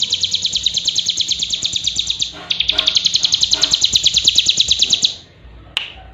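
A cigun songbird's rapid, even, high-pitched trill of about ten notes a second, broken by a short pause about two and a half seconds in and stopping at about five seconds, followed by a couple of sharp clicks.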